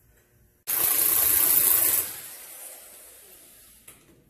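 A loud hiss of spray or rushing air starts abruptly just under a second in, holds for about a second and a half, then drops and trails away.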